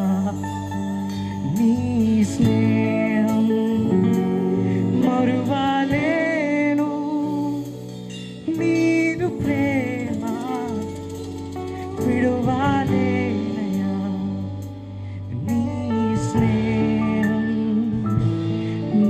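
A live band playing a Telugu Christian worship song: male voices singing the melody over electric guitar, keyboard and drums, with short breaks between sung phrases.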